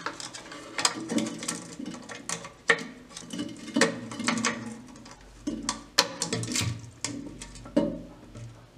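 Irregular clicks and knocks of hands handling the old rubber flapper valve and its plastic fittings inside a ceramic toilet tank.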